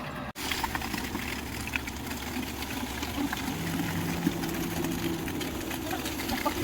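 An engine running steadily, with a faint steady hum coming in about halfway through.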